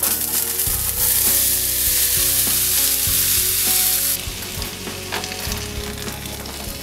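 Chopped bell peppers, jalapeños, onion and garlic dropped into a hot oiled frying pan and sizzling, the sizzle dropping to a quieter hiss after about four seconds.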